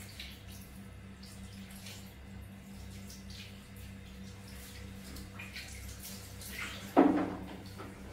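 Bath water splashing and dripping in a small tub as a baby monkey is bathed, over a steady low hum. One louder thump comes about seven seconds in.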